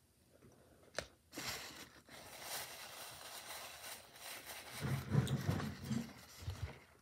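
Paper food wrapper rustling and crinkling as it is handled, after a single sharp click about a second in. A few low thuds follow near the end.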